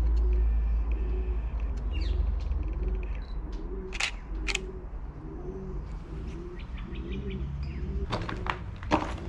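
Feral pigeons cooing: a steady run of low, repeated coos. A few sharp clicks and knocks come about halfway through and near the end.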